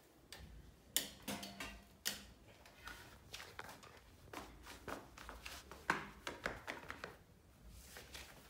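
Faint rustling and scattered light taps as a foot in fur slide sandals moves about on a tiled floor, with the sandals shifting against the tiles; the sharpest taps come about a second in, at two seconds and at six seconds.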